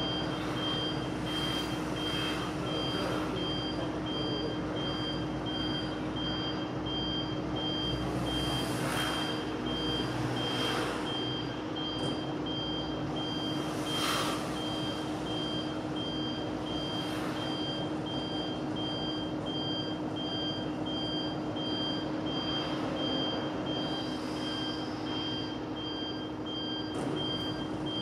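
Washing machine running with a steady hum while a high-pitched electronic beep repeats at an even pace throughout; a few brief swishing or knocking noises come at intervals.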